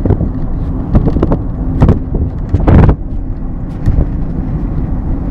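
Car engine and road noise heard from inside a moving car: a steady low rumble with several short thumps, the loudest about three seconds in.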